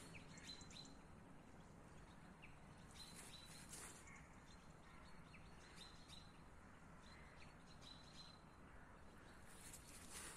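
Near silence: faint outdoor night background noise with a few faint, brief high chirps and clicks.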